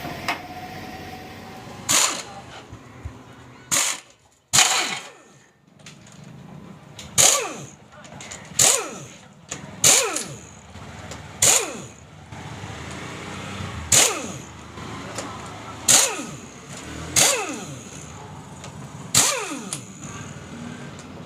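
Metal tools and parts clanking sharply about eleven times, one strike every second or two, each ringing briefly with a falling tone, as a motorcycle engine is taken apart.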